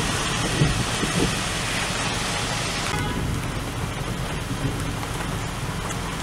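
Steady rain hiss, with no voices; its highest part drops away about three seconds in.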